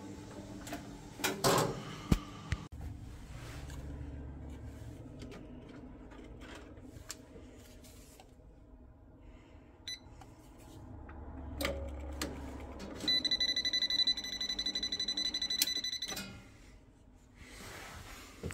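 An electrical test meter's buzzer gives a steady, slightly pulsing high beep for about three seconds near the end. Before it come a few sharp knocks and clicks in the first few seconds, over a faint low hum.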